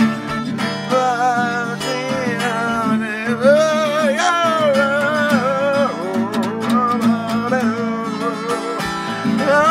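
A man singing to his own strummed acoustic guitar, his voice sliding between long held, wavering notes over the steady strumming.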